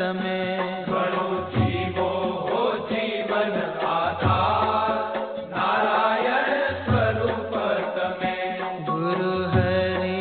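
Gujarati devotional kirtan music with a melody over a steady low beat that recurs about every second and a half.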